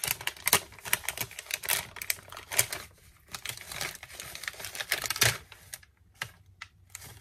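Hands opening a small paper-and-plastic gift package: irregular crinkling with quick sharp clicks and snaps, thinning out briefly about three seconds in and again around six seconds.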